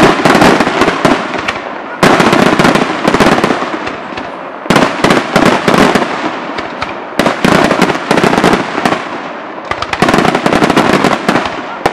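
Aerial firework shells bursting in quick volleys: dense runs of sharp bangs and crackling, with a fresh volley breaking out about every two to three seconds.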